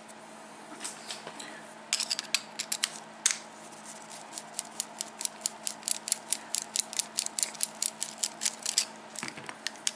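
Small metal clicks from an ABUS 72/40 brass padlock being worked on as its core is taken out: a short cluster of clicks, then a steady run of light clicks at about four a second.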